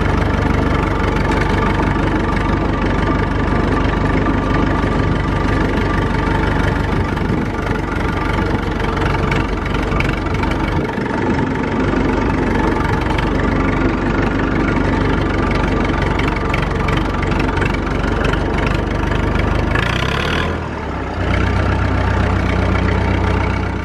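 Massey Ferguson 165 tractor engine running steadily as the tractor is driven. About twenty seconds in the engine sound dips briefly, then picks up again.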